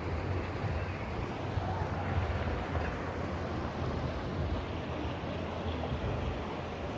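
Steady outdoor background noise with wind rumbling and buffeting on the microphone.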